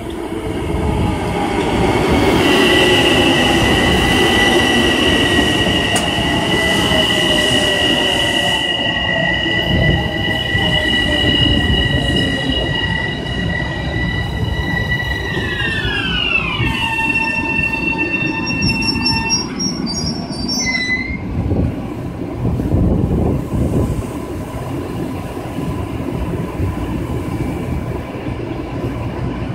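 Long Island Rail Road electric multiple-unit train running past the platform: a steady rumble of wheels on rail and motor whine. A high steady tone drops sharply in pitch about halfway through as the front of the train passes, then fades out.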